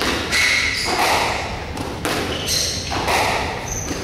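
Squash rally: the ball struck by rackets and hitting the court walls, about one sharp, echoing hit a second.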